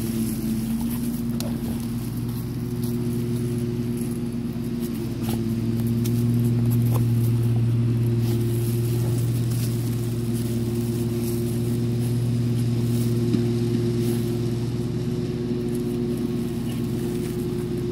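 A steady low mechanical hum, like a running engine or motor, is the loudest sound. Faint scattered clicks and scratching come from dogs pawing and nosing into soil.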